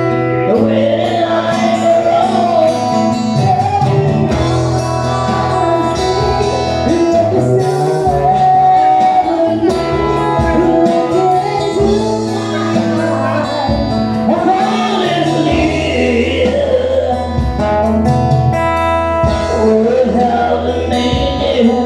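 Live band playing a slow pop ballad, with a singing voice over guitar and a held bass line.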